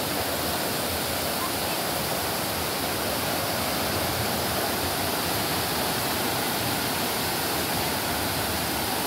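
Muddy river in flood rushing fast through trees and over submerged fence posts: a steady, unbroken rush of water.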